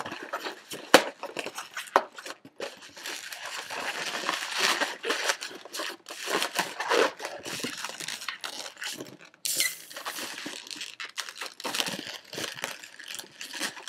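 Inflated latex twisting balloons being rubbed and twisted in the hands, an irregular crinkly rubbing of latex on latex as pinch twists are made, with a couple of sharp clicks about one and two seconds in.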